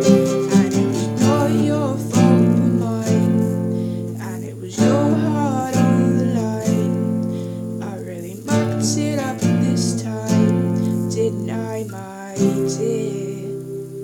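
Acoustic guitar strumming sustained chords, a new strum roughly every two seconds, with a woman singing over it.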